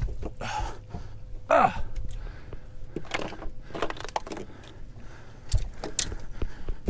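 Irregular knocks, scuffs and rustles of someone moving about on a fiberglass boat deck, with a low rumble throughout and a brief voice sound about a second and a half in.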